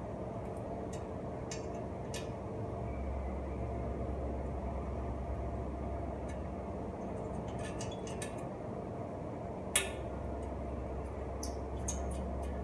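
Scattered light metallic clicks and clinks of hand tools working on a bicycle frame, with one sharper click about ten seconds in, over a steady low hum.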